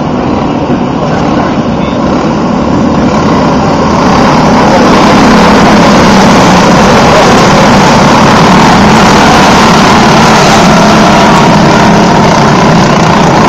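Engines of a pack of dirt-track racing karts running at full throttle, getting louder about four seconds in as the field comes by close.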